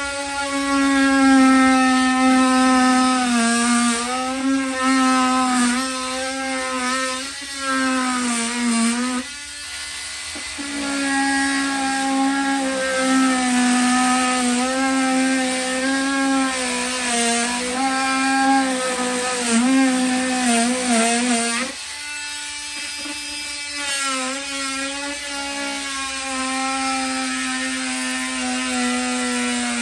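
Oscillating multi-tool cutting into wood siding: a steady pitched hum whose pitch sags each time the blade bites. It stops briefly about nine seconds in, and near twenty-two seconds it drops to a quieter, lighter run.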